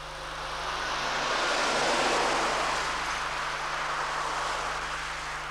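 A passing vehicle: a rushing noise with no clear engine note swells to its loudest about two seconds in, then fades away.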